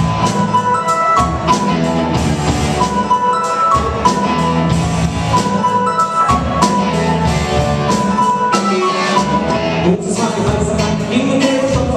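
Live rock band playing a Kölsch carnival song: drum kit, electric guitars and keyboard over a steady beat, with a high melody line repeating its phrase. Singing comes in about ten seconds in.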